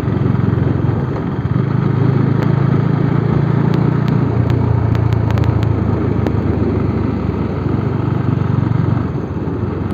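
Bajaj Dominar 400's single-cylinder engine running steadily while the bike is ridden through town traffic.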